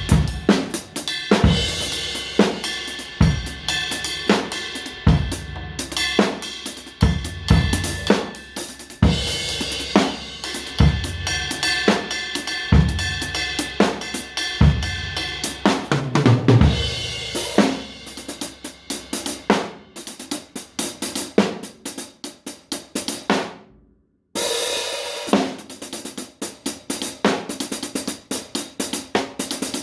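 Drum kit played freely. For the first half, kick and snare hits run under cymbals. After that it moves to fast hi-hat and cymbal strokes with no kick, breaks off for a moment about two-thirds of the way through, then goes on with rapid cymbal playing.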